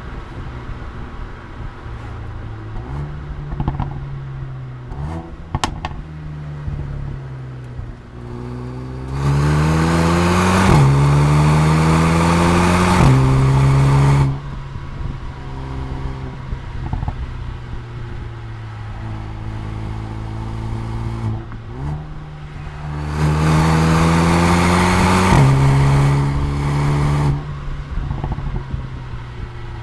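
Mercedes-AMG A35's turbocharged four-cylinder engine and exhaust pulling hard twice, each time revving up through two gears with quick upshifts and then easing off. Between the pulls it runs steadier at part throttle, with a few sharp cracks about five seconds in.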